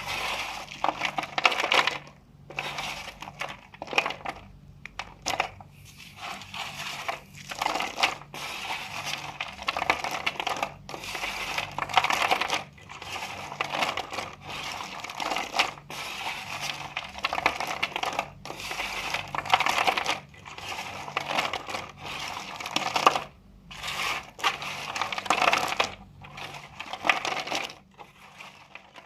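A knife cutting dry soap into cubes: crisp crunching and scraping strokes in quick clusters, with brief pauses between them.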